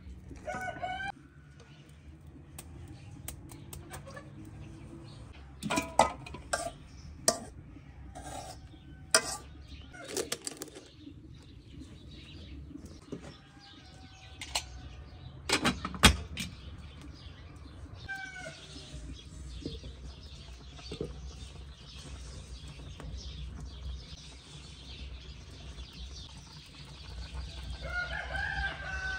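Chickens calling several times: a short call at the start, another about two-thirds through, and a longer call near the end. In between comes a run of sharp knocks and clatter, the loudest about halfway through.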